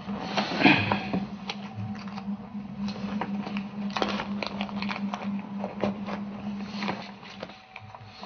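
Rustling and small scraping clicks of hands, clothing and a paper banknote being handled, over a steady low hum.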